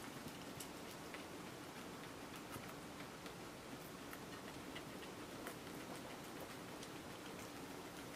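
Two guinea pigs chewing fresh cilantro, making quick, irregular soft crunches and clicks.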